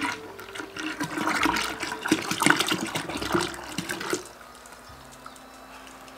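Cream pouring in a thin stream into a glass jar of cream, splashing into the liquid; the pour stops about four seconds in.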